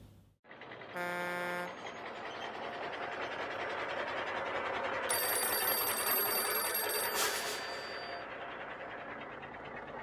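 Sound effects: a short horn honk about a second in, then a long rushing vehicle sound that swells and fades. Over it, a telephone bell rings for about two seconds from the middle, ending in a sharp ding.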